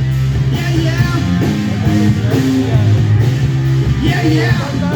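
Live rock band playing, with a Les Paul Standard electric guitar over a steady low bass line and a drum kit.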